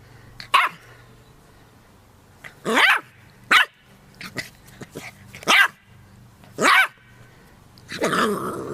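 A dog barking, about six single barks spaced a second or two apart.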